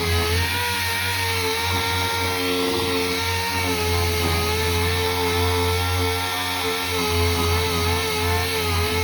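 Angle grinder running continuously as it grinds on a car's steel body at a seam, a steady whine that wavers slightly in pitch under load.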